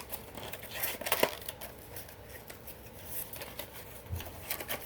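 Handling noise: scattered light clicks and rustles as a plastic fire alarm horn strobe and its packaging are moved about, with a cluster about a second in and more near the end.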